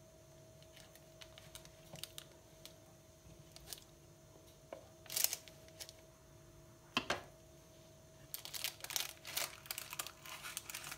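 Metal slotted spatula and knife scraping and clicking against a metal baking tray and its parchment paper while a portion of hachis parmentier is cut and slid loose. Faint scattered clicks, a sharper scrape about five seconds in and another about seven seconds in, then a quick run of crackly clicks near the end.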